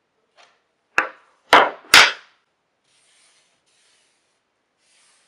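Three sharp knocks on the wooden picture frame and clamping jig, in quick succession about a second in, followed by faint rubbing of a hand over the wood.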